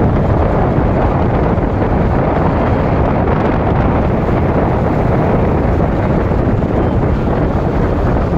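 Loud, steady wind buffeting the microphone of a moving vehicle, with a low rumble of travel beneath it.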